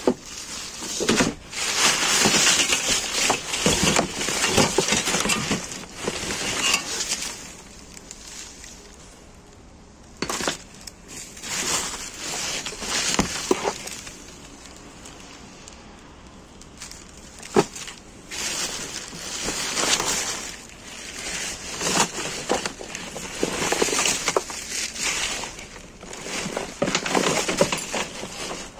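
Plastic film, bags and bubble wrap crinkling and rustling in irregular bursts as rubbish is rummaged through by hand, with a few sharp knocks from hard items being moved.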